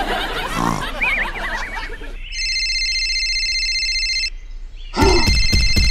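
Wavering grunt-like sound effects, then a mobile-phone ringtone sound effect: a steady electronic ring from about two seconds in, and near the end a louder, rapidly pulsing ring with a buzzing vibration.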